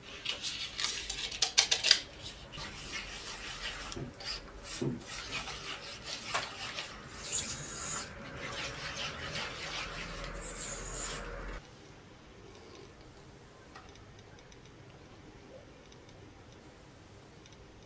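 Silicone spatula stirring a wet batter and scraping against a stainless steel mixing bowl, with sharp clicks and knocks in the first two seconds. The scraping stops about two-thirds of the way through.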